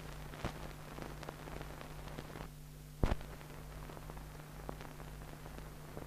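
Background noise of an old recorded soundtrack: steady hiss with a low hum and scattered crackle, with a sharper pop about three seconds in.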